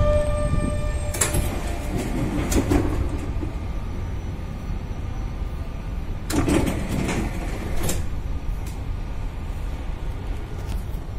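Passenger doors of a Tram 2000 "Pony" tram working at a stop. There is a clunk about a second in and another near three seconds, then a longer rattle with knocks from about six to eight seconds as a door moves. Under it all runs the low, steady hum of the standing tram.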